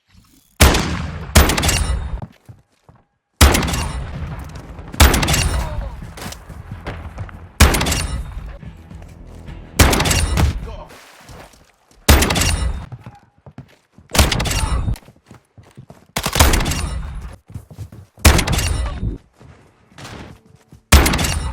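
Shotgun being fired again and again, about eleven shots spaced roughly two seconds apart, each ringing out and dying away before the next.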